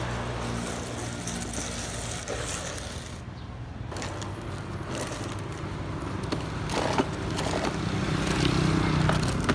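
Hard plastic wheels of a toddler's ride-on toy car rolling and scraping over gritty dirt and concrete, a continuous rough rumble with a few sharp clicks about seven seconds in.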